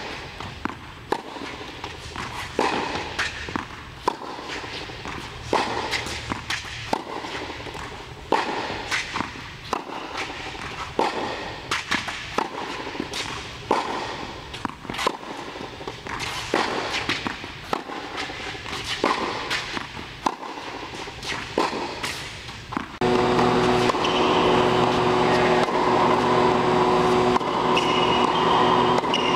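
Tennis balls struck by a racket and bouncing on an indoor hard court, sharp hits coming every second or two. About 23 seconds in the sound changes suddenly to a steady hum with several held tones.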